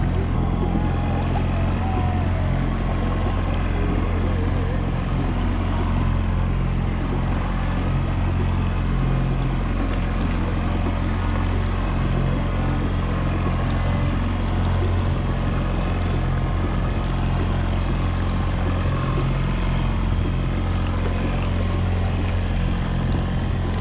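A boat's engine running steadily at trolling speed, a constant low hum with wind and water noise over it.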